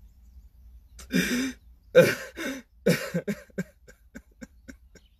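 A man sobbing: a run of short, loud crying sobs and catching breaths starting about a second in, trailing off into faint breathy sounds.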